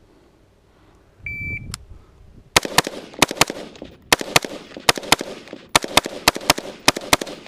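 A shot timer's start beep about a second in, then, after a pause of about a second, a fast string of AR-15 rifle shots fired in quick pairs and threes.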